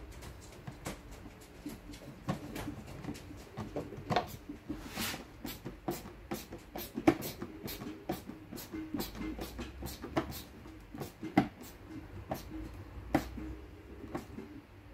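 Irregular clicks, taps and light scrapes of hand tools working against a steel Land Rover door-top frame while its glass is fitted, over a faint steady low hum.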